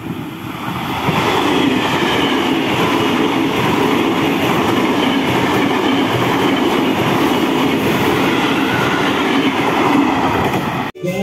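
KRL Commuter Line electric multiple unit passing close by, giving a steady rumble of wheels on rail. The sound builds about a second in and cuts off abruptly near the end.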